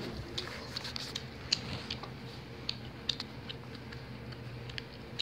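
A cat scrabbling and pawing in a fleece blanket: faint, scattered small clicks and soft rustles, with a sharper tick at the very end.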